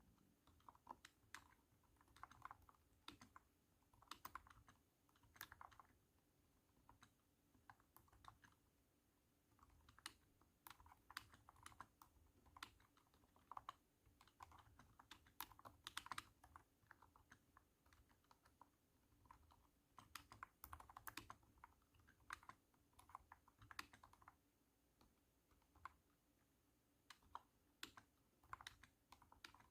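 Typing on a cat-shaped keyboard: runs of thunky keystrokes with short pauses between them.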